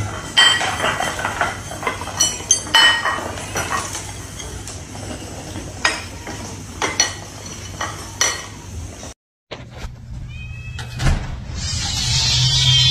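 Ceramic food bowls clinking and clattering on a hard stone floor as a group of kittens eats from them, a run of sharp ringing clinks over about nine seconds. After a brief dropout, a steady high hiss rises near the end.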